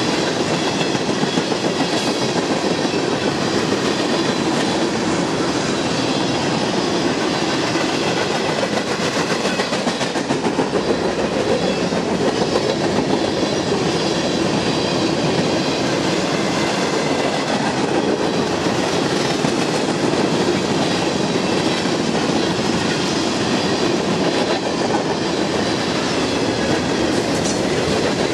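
Freight cars (tank cars, then covered hoppers) rolling past on steel wheels: a steady rumble and clatter of wheels on rail that carries on without a break.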